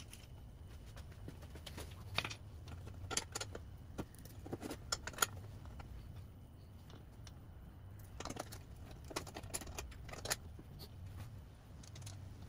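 Small metal washers and fasteners clinking and tapping as they are picked up and handled, in scattered light clicks over a low steady hum.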